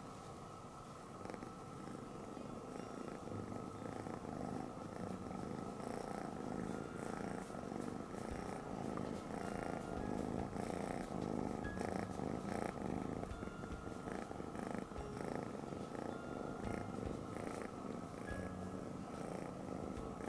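Three-month-old Maine Coon kitten purring hard: a continuous purr that grows a little louder over the first few seconds.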